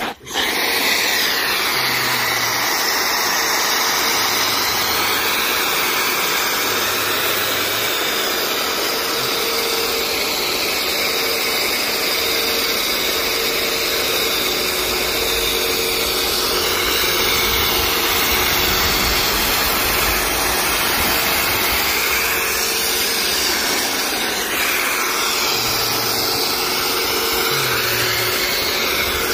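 Pressure washer spraying snow foam through a foam cannon: a loud, steady hiss of spray with the pump running underneath as a faint steady whine.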